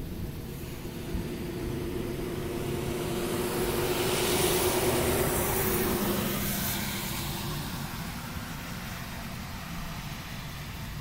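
A passing vehicle, its tyre and engine noise swelling to a peak about four to six seconds in and then fading, over a steady low rumble.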